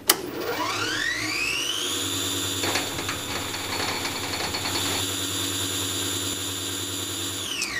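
A high-speed electric motor spinning up with a whine that climbs in pitch over about two seconds, holds steady and high, then winds down quickly near the end.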